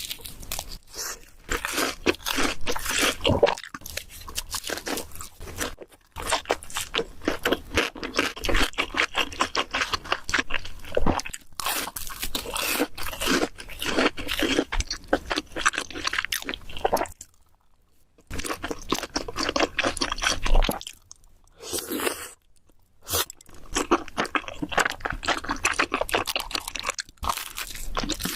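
Close-miked crunching and chewing of food: dense crackling bites and chews, broken twice by brief near-silent gaps a little after the halfway point.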